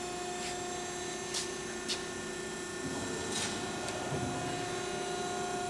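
Steady machine hum from a running Euromac hydraulic CNC punch press, with a few faint short ticks.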